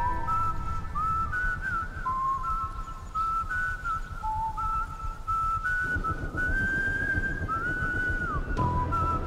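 A whistled melody in the drama's soundtrack: one clear line with short slides between notes, over low backing music that grows fuller about six seconds in.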